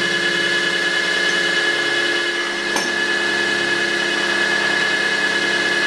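Deckel G1L engraving machine's spindle running with an end mill taking a roughing cut along the shank of a lathe toolholder: a steady whine of several tones, with a single tick about three seconds in.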